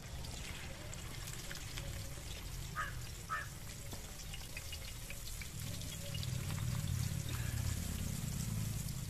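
Hot oil sizzling and crackling as a whole masala-coated katla fish is laid in the pan to fry. A low rumble grows louder about six seconds in, and two short bird calls sound about three seconds in.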